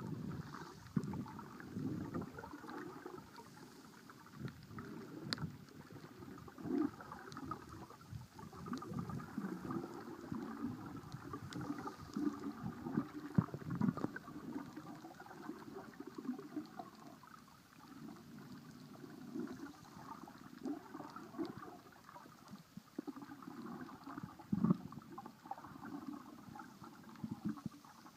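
Muffled underwater gurgling and sloshing of water around a submerged camera, uneven and rumbling, with a few faint clicks.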